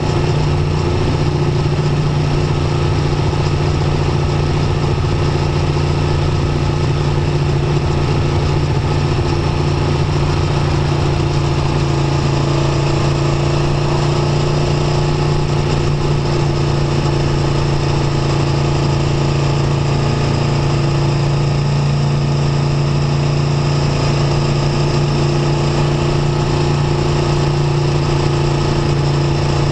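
Aprilia Tuono V4 1100 RR's 65-degree V4 engine running at a steady, nearly unchanging engine speed while the motorcycle cruises, heard from on board the bike.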